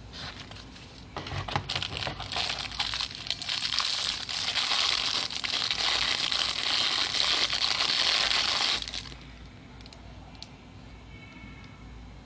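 Plastic packaging being crinkled and torn open by hand. It starts as scattered crackles about a second in, builds to a loud, continuous crinkling, then stops abruptly near the end.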